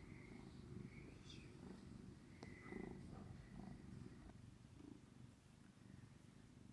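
Long-haired tabby cat purring softly while being stroked, a low steady rumble, with a couple of faint ticks partway through.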